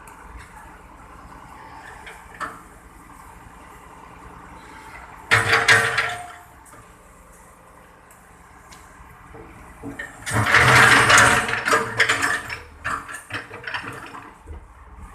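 Backhoe at work: a steady low machine background, broken by two loud rushing bursts, one about a second long a third of the way in and a longer one about two-thirds of the way in.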